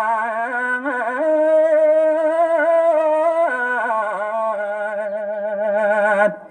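A man's voice chanting in long held notes with a strong waver, stepping to a new pitch twice, played loud through a restored TOA horn speaker; the voice breaks off near the end.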